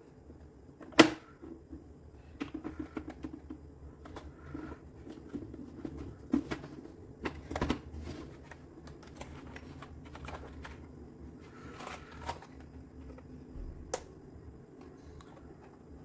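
Keys of a Redragon K596 Vishnu mechanical keyboard with linear red switches being pressed: irregular clacks with quick flurries of keystrokes, and a loud single clack about a second in.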